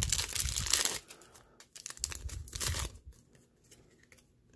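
Foil wrapper of a Yu-Gi-Oh Speed Duel booster pack tearing and crinkling as it is ripped open by hand. It comes in two bursts: one that stops about a second in, and another from about two to three seconds in.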